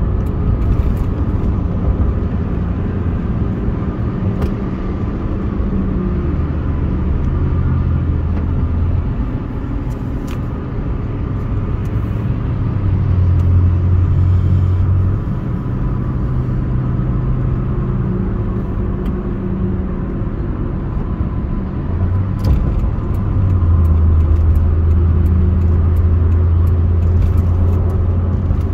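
Road noise inside a moving car at freeway speed: a steady low hum of engine and tyres, its low drone shifting in pitch now and then, with a few faint clicks.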